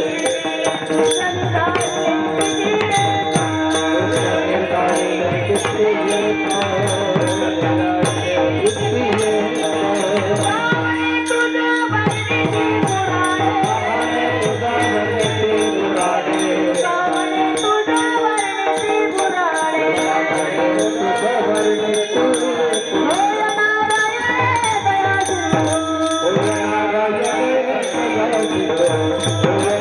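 Marathi kirtan bhajan: singing over steady held instrumental notes, with small hand cymbals (taal) clinking a steady, even beat throughout.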